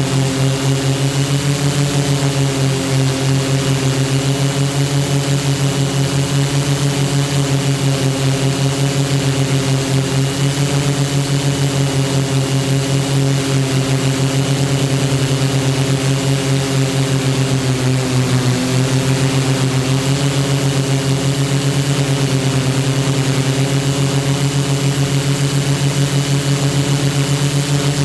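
HMF U580 quadcopter's Gartt 3508 brushless motors and propellers humming steadily in flight, heard from the camera on board, with a slight dip in pitch about two-thirds of the way in.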